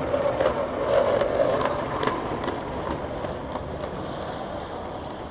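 Skateboard rolling downhill on asphalt: a steady rough rumble of urethane wheels on the road, with several sharp clicks in the first couple of seconds as the wheels pass over cracks.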